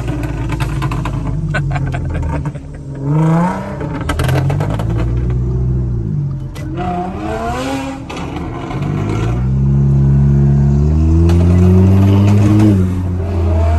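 Loud B8 Audi S4 supercharged 3.0 V6 accelerating, its revs climbing and falling several times, with crackles and pops from the exhaust off the throttle. A long pull near the end cuts off sharply.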